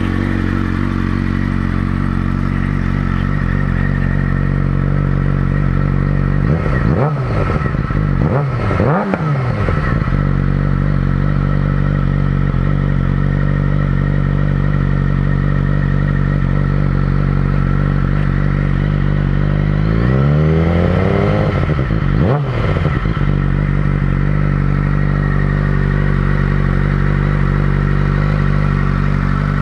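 2007 Suzuki GSX-R 600's inline-four idling through a newly fitted Competition Werkes GP exhaust, on its first startup with the new pipe. The throttle is blipped two or three times about seven to ten seconds in, and revved up and back down twice around twenty to twenty-three seconds in.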